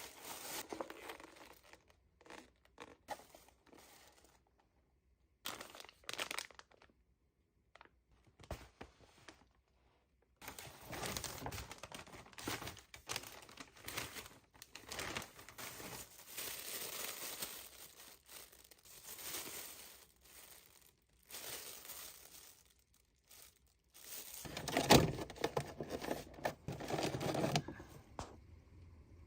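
Irregular rustling and crinkling of handled material, like a wrapper or bag being worked, coming in stretches with short pauses. A louder knock and handling noise comes about 25 seconds in.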